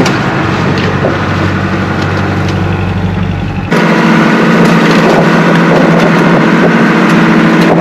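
Boat engine running steadily. About four seconds in the sound changes abruptly: the deep low rumble drops out and a steady higher engine hum continues.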